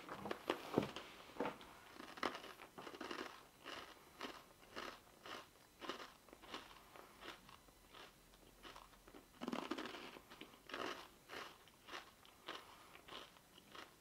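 A person chewing hot wasabi rice crackers: a steady run of crisp crunches, about two to three a second, heaviest in the first couple of seconds and again briefly in the middle.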